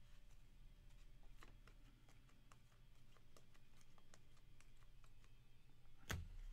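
Faint ticks and flicks of stiff chromium trading cards being handled and flipped through by hand, cards clicking against each other, with one sharper click about six seconds in.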